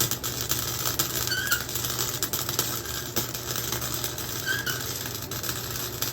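Chicago Electric flux-core wire welder arc crackling steadily while a tack weld is laid on exhaust pipe, over a low electrical hum. A faint short squeak comes about every three seconds.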